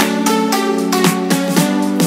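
Background music with a steady beat under held chords.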